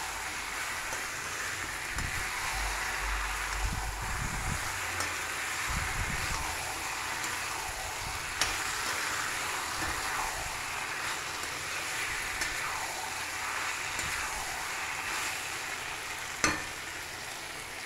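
Parboiled chicken pieces sizzling in oil in a metal kadai while being stirred, a steady frying hiss with a few low thuds from the stirring. A single sharp click comes near the end.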